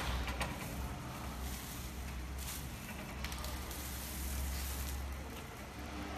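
Clear plastic film crinkling and rustling as it is handled and pulled through the sealer, with a few light clicks, over a steady low hum.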